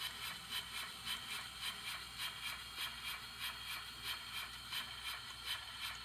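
TCS WOW digital sound decoder in a Bachmann three-truck Shay model locomotive playing steam exhaust chuffs through a small speaker, an even beat of about two chuffs a second.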